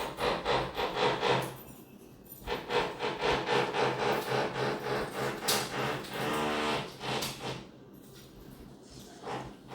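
Renovation work in the flat below, heard through the floor: rapid hammering at about four blows a second, pausing briefly about two seconds in, then a short pitched whine from a power tool a little past the middle.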